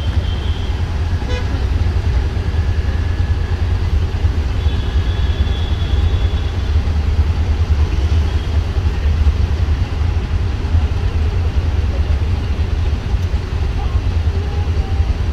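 Steady low engine rumble of idling traffic, heard from inside an auto-rickshaw waiting at a junction among scooters and motorcycles. A vehicle horn sounds for a couple of seconds about five seconds in.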